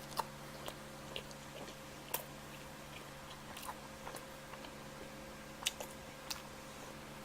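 Mouth chewing pizza close to the microphone: soft, irregular wet clicks and smacks, with a faint steady hum underneath.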